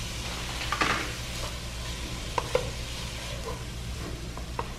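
Grated carrot and chopped onion sizzling in olive oil in a pan as a spoon stirs them, with a few scrapes and clinks against the pan, the loudest about a second in.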